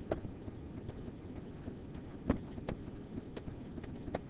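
Quiet room noise with about half a dozen light, sharp taps spread unevenly through it: a pen tapping on the writing surface as a lecturer handwrites notes on an interactive whiteboard.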